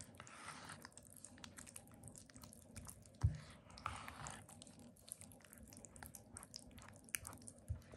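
Spatula stirring béchamel into puréed broccoli in a plastic bowl: faint wet squelching and scraping, with a soft knock against the bowl about three seconds in.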